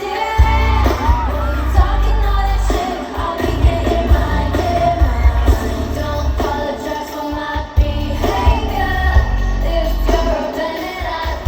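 K-pop song played live: female vocals over a heavy bass beat.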